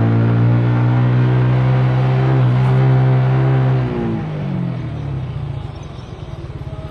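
A car's engine runs at steady revs, heard from inside the moving vehicle. About four seconds in, its note falls as the car slows and turns into a low, rapid pulsing.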